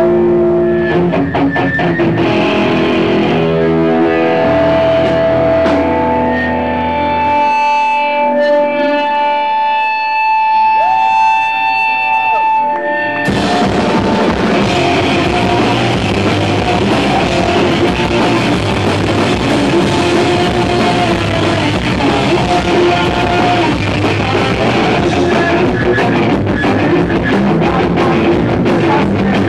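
Live punk rock band. About the first half is sparse, held electric guitar and bass notes ringing out, the low bass dropping away partway through. About halfway in, the full band comes in together with distorted electric guitars, bass and drums, and keeps playing fast and steady.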